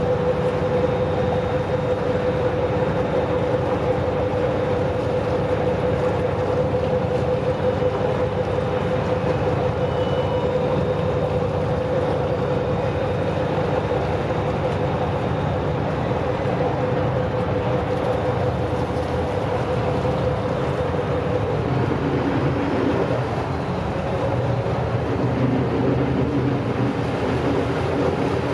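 Vaporetto's diesel engine running steadily underway, a constant hum over the wash of water along the hull. About 22 seconds in the engine note shifts lower.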